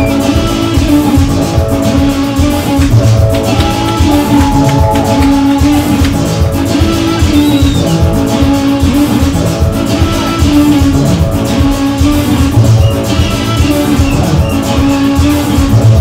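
Lively music with guitar and a steady drum beat.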